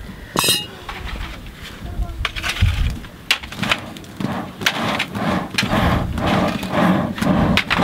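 Charcoal fire of a traditional forge crackling, with irregular sharp pops and snaps as sparks fly up.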